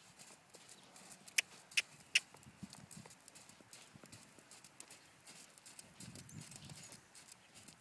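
Appaloosa mare's hooves thudding in the sand at a choppy, tired trot. About a second and a half in come three sharp clicks in quick succession, the loudest sounds here.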